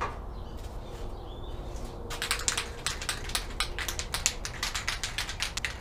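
An aerosol can of spray adhesive being shaken, its mixing ball rattling in rapid clicks, about five a second, starting about two seconds in.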